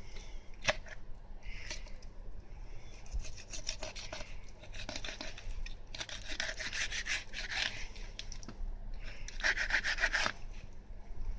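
Kitchen knife drawn along the bones of a black sea bream as a fillet is cut free, rasping in a series of strokes, the longest in the middle and another near the end.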